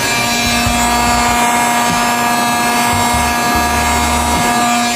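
2000-watt heat gun running steadily: a rush of blown air with a steady motor whine, played over faded plastic car trim to heat it.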